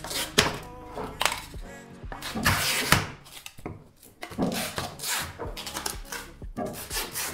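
Background music with several sharp wooden knocks and a short scrape of hand tools worked against the wood of a damaged cricket bat.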